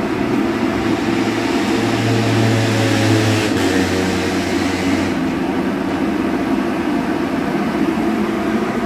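Steady mechanical hum with a low tone that drops slightly in pitch about three and a half seconds in and stops about five seconds in, over a constant background noise.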